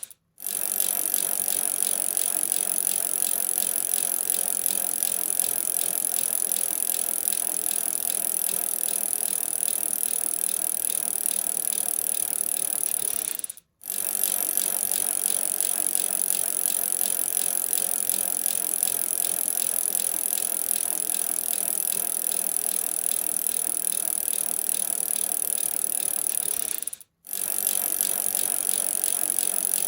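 Bicycle chain running, a steady fast rattling tick. It drops out briefly three times, about 13.5 seconds apart.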